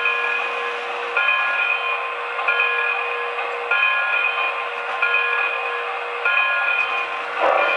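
A model train's sound unit ringing a locomotive bell, struck about once every 1.2 seconds with each ring carrying on until the next, over a steady hiss.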